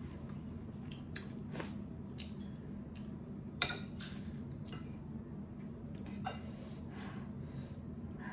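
Metal fork and spoon clicking and scraping against a plate as a boiled egg is cut and noodles are twirled, with soft wet eating sounds between the clicks. About a dozen short clicks, the sharpest a little over halfway, over a steady low hum.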